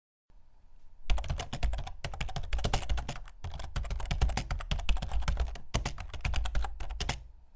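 Typing sound effect: a rapid run of keyboard keystroke clicks that starts about a second in, pauses briefly twice, and stops shortly before the end.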